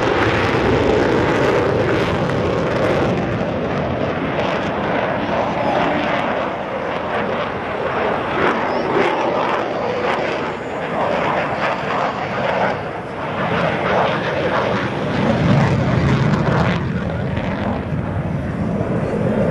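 Fighter jet flying a display pass, a loud steady rush of jet-engine noise with crackle through it, the low rumble swelling about two-thirds of the way through.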